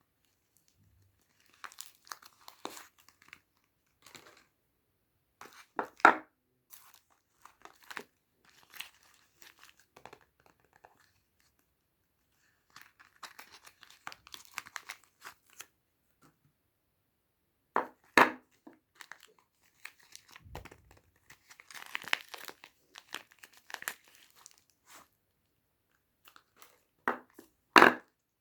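Soap bar wrappers crinkling and tearing as they are handled and opened, in bursts separated by quiet pauses. Three sharper, louder tears stand out: one about 6 s in, one about 18 s in, and one near the end.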